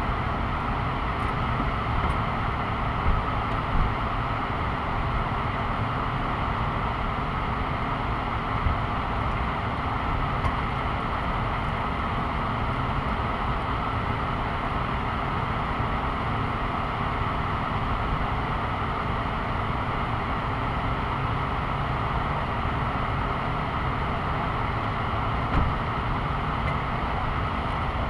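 Steady hum of passing road traffic and idling vehicles, with a few brief louder bumps.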